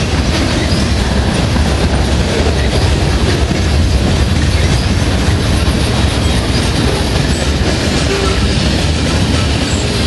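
Freight cars of a passing train (boxcars and tank cars) rolling by close up: a loud, steady rumble and rattle of steel wheels on the rails.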